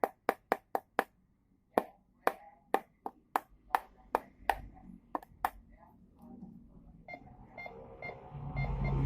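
A series of about a dozen sharp taps or clicks, roughly two to four a second, that die away after about five seconds. Near the end a rising hiss builds, with faint steady tones in it.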